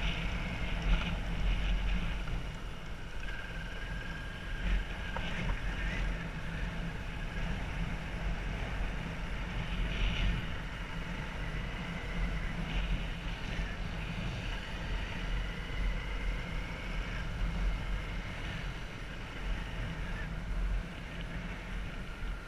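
Motorbike engine running on the move, with wind buffeting the microphone and a faint whine that drifts slowly up and down in pitch.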